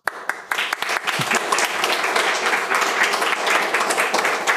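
An audience applauding: the clapping breaks out suddenly and carries on at a steady level.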